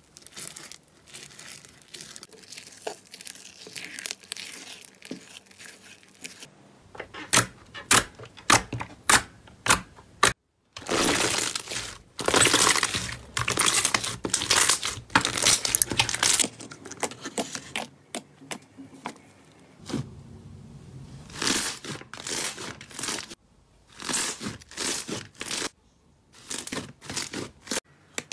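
Slime being worked by hand in a string of short clips: stirred, stretched and pressed. It makes sticky crackling and tearing sounds with runs of sharp pops and clicks, and brief gaps where the clips change.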